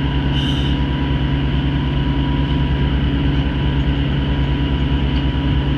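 Fishing vessel's engine running with a steady, unbroken drone.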